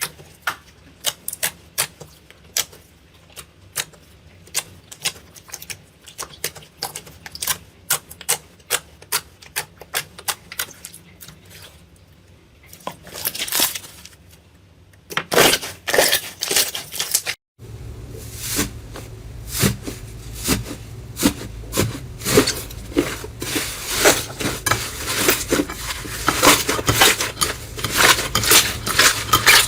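Slime being pressed and played with by hand, giving a run of sharp clicks and pops. About halfway through the sound breaks off, and the clicking comes back denser over a low hum.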